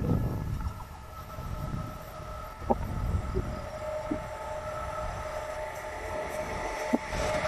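Approaching freight train of hopper wagons: a steady two-tone whine over a low rumble, getting louder toward the end.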